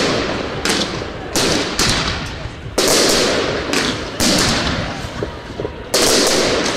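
Aerial fireworks shells bursting overhead, about six loud bangs at uneven intervals, each trailing off in a fading crackle and echo.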